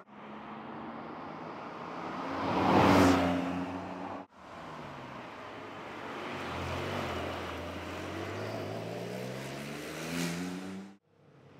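Porsche 992 Carrera GTS Cabriolet's twin-turbo flat-six driving past: it comes up and passes close about three seconds in. After a cut, the engine note climbs steadily as the car accelerates out of a bend, then breaks off near the end.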